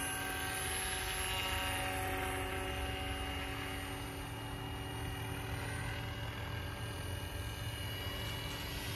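Electric RC scale helicopter, a Roban 800 UH-1D Huey on a 12S Egodrift motor, in flight: a steady whine of several held tones from the motor and rotors, with a low rumble underneath.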